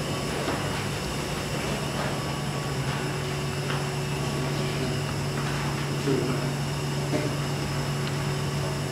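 Steady low mechanical hum of running building or plant machinery, like a ventilation fan, unchanging throughout.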